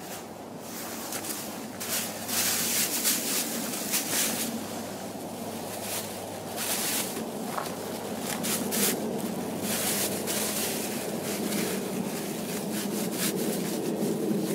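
Thin plastic grocery bag crinkling and rustling in irregular bursts as the two cut halves are handled and joined together, over a steady hum of distant road traffic.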